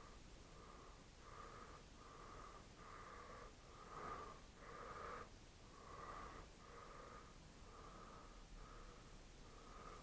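Faint, rhythmic wheezy breathing, a soft whistling breath repeating about every three-quarters of a second.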